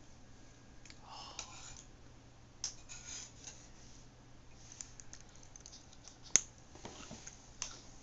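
Quiet scattered clicks and short rustles of a baby eating and handling food at close range, with one sharp click about six seconds in.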